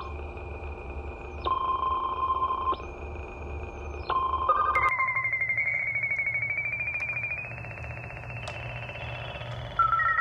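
Electronic tones: steady beeps switch on and off over a low hum. About halfway a pulsing tone takes over and slowly rises in pitch, and near the end it gives way to new, louder beeps at two pitches.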